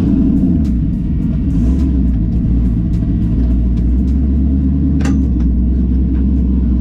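Car engine running with a steady low rumble, with one brief sharp click about five seconds in.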